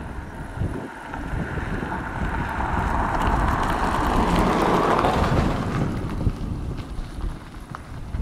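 Airbus A321 jet airliner on final approach with gear down, its engines a rushing whine that grows louder to a peak about halfway through and then eases as it passes. Wind buffeting the microphone adds a low rumble throughout.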